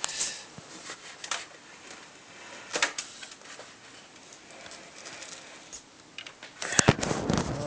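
Handling noise as a computer case is turned around: scattered clicks, knocks and rustling, with a louder cluster of knocks and scraping near the end.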